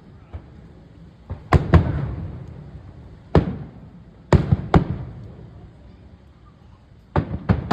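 Aerial firework shells bursting: sharp bangs, singly and in quick clusters of two or three, each followed by a low rolling echo that dies away over a second or so.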